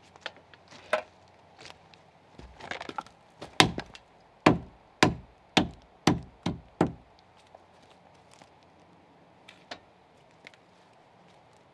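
Axe chopping into timber: a run of about seven sharp blows about half a second apart in the middle, with a few lighter knocks of wood before and after.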